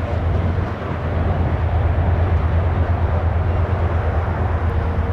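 Freight train of covered hopper cars rolling past, a steady low rumble of wheels on rail.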